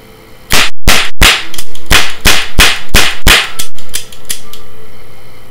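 Plastic toy cap gun fired rapidly: about ten sharp, loud cap pops in quick succession, about three a second, over some three seconds.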